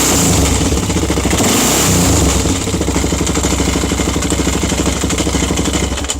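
Yamaha XT 660X single-cylinder engine running, revved briefly near the start and again about two seconds in, then settling to a steadier idle with a metallic rattle. The owner suspects the rattle comes from the gears in front of the electric starter.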